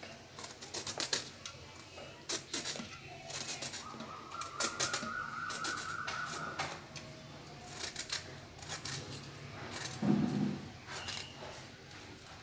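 Ridge gourds and greens being handled in a steel bowl: a string of irregular clicks and knocks as the vegetables are lifted and set against the metal, with a heavier thump about ten seconds in.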